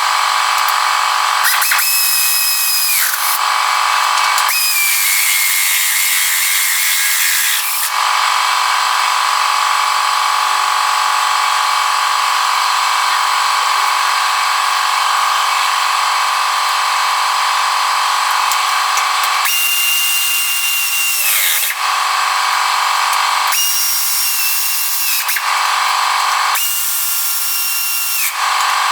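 A power tool's motor runs in repeated bursts of a few seconds, with a high steady whine that sags in pitch as it slows, while tightening the subframe and body-brace bolts back up.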